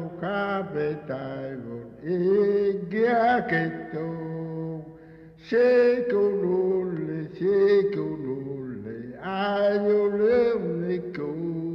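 A solo voice chanting, holding long, slightly wavering notes in phrases separated by short pauses.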